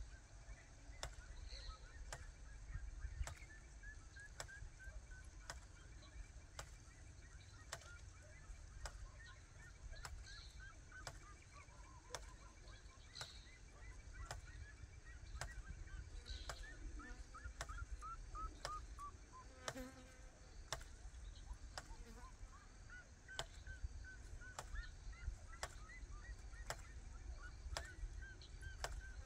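Outdoor field ambience: a low wind rumble on the microphone, with a long run of short repeated bird chirps and a sharp click recurring about once or twice a second.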